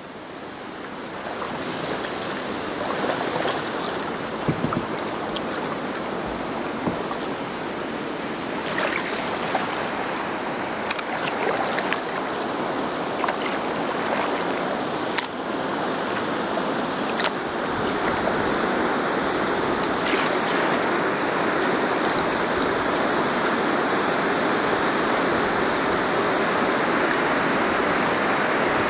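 Rushing river water, a steady hiss of flowing water that fades in at the start, with scattered small splashes and clicks in the first half, then grows a little louder and fuller about halfway through.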